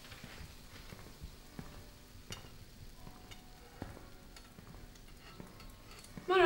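Faint sizzling and crackling of food frying in a pan on a stove, with scattered light clicks. Right at the end comes a short, louder pitched sound with a clear tone.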